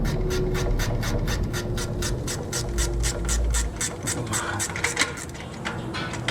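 15 mm ratcheting wrench clicking quickly and evenly, about eight clicks a second, as a bolt is turned on a 4L60 transmission install; the clicking stops a little before the end.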